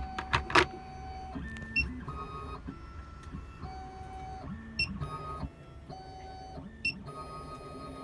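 SEC-E9 CNC key cutting machine running its cutting cycle: its stepper motors whine at a series of steady pitches that switch on and off and jump every half second to a second as the carriage moves. There are a few sharp clicks in the first second.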